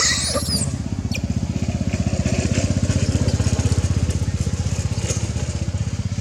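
A small engine running steadily with a fast, even low throb. A brief high squeal that rises and falls comes right at the start.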